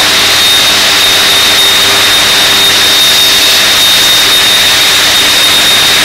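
Smelting furnace and casting machinery running: a loud, steady industrial roar with a constant high whine and a low hum under it.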